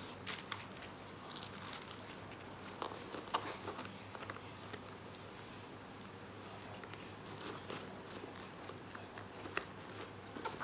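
Handling a nylon crossbody bag on its plastic wrapper: scattered rustling and crinkling of fabric and plastic sheet, with small sharp clicks as the bag's front buckle is fastened, the sharpest about nine and a half seconds in.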